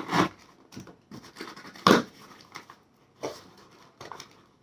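A parcel's packaging being opened and handled: short, irregular rustles and crinkles, with one sharp, louder noise about two seconds in.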